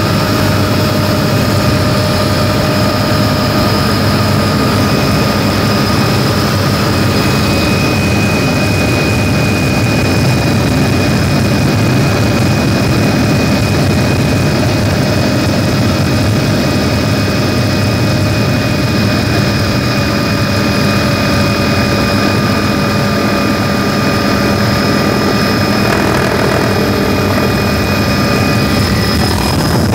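Helicopter in flight heard from inside the cabin: a loud, steady engine and rotor noise, with several steady high whines over a low rumble.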